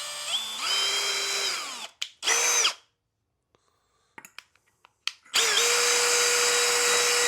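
Power drill boring a pilot hole through a replacement air filter. It spins up and runs for about two seconds, gives a short burst, then after a few clicks runs steadily at one pitch for the last two seconds.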